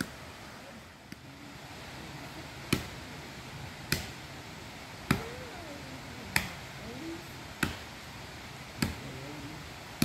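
Axe chopping into a standing tree trunk: six sharp strikes at an even pace, about one every second and a bit, beginning about three seconds in.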